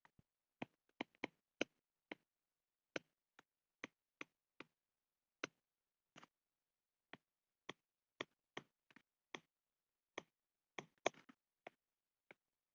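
Faint, sharp clicks at an uneven pace, roughly two a second, over near silence.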